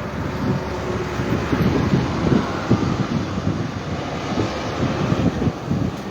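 Wind buffeting the microphone over a steady rumble of road traffic, in gusts with no clear rhythm.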